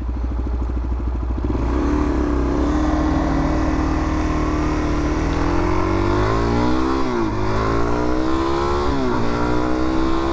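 Suzuki DR-Z400's single-cylinder four-stroke engine under way, holding steady and then accelerating, with the revs climbing and dropping sharply at two upshifts in the second half.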